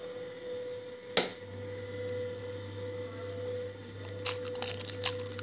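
A hen's egg being cracked over a plate of spiced chicken: one sharp tap about a second in, then a few small clicks near the end as the shell is broken open. A steady hum runs underneath.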